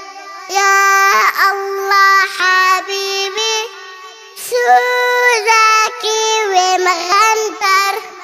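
A child singing alone, unaccompanied, in melodic phrases with a brief pause about halfway through.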